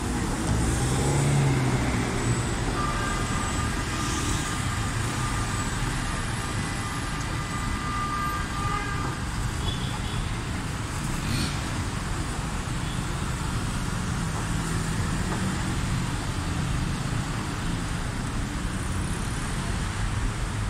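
Busy city boulevard traffic heard from above: a steady rush of car and bus engines and tyres passing below, with a faint high held tone for several seconds about three seconds in.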